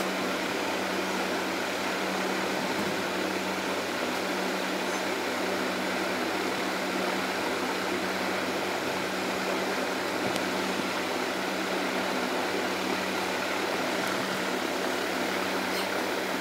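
A fan running: a steady whir with an even low hum.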